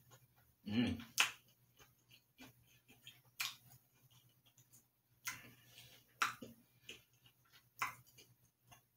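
A person chewing a mouthful of peanut butter cookie with Butterfinger pieces: faint, irregular mouth clicks and smacks every second or so.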